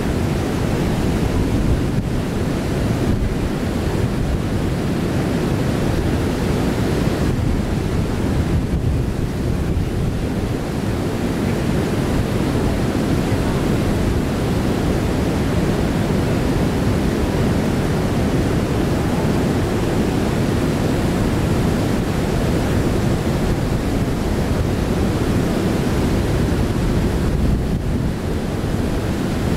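Steady rush of river water pouring over low falls and rapids, mixed with wind rumbling on the microphone.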